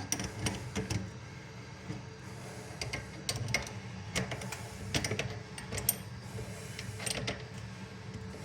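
Adjustable wrench working the nuts on faucet water-supply connectors: irregular metal clicks, knocks and scrapes as the fittings are tightened.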